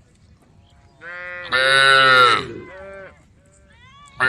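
Cattle mooing: after a quiet second, one cow gives a long, loud moo that tails off at about three seconds, and another moo starts near the end.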